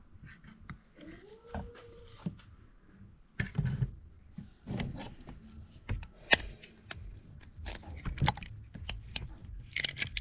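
Scattered knocks and clicks, with a short pitched sound that rises and falls about a second in.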